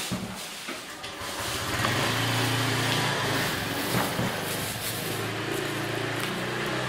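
A motor engine running steadily, building up over the first second or two and then holding at a steady level.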